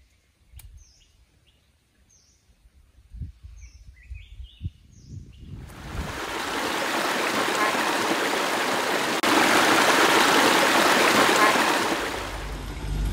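Short, repeated bird chirps over near-quiet; then about six seconds in, a rocky forest stream rushing and splashing over boulders comes in steady and loud, growing louder a few seconds later before easing near the end.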